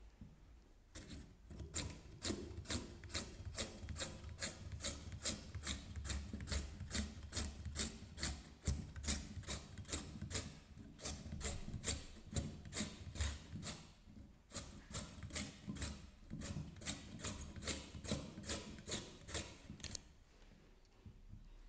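Carrot rubbed rapidly back and forth across the blade of a stainless steel mandoline vegetable slicer, about three short scraping slicing strokes a second, with a brief pause about two-thirds of the way through. The strokes stop near the end.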